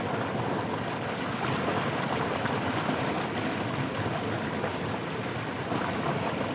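Steady rushing of fast-flowing floodwater.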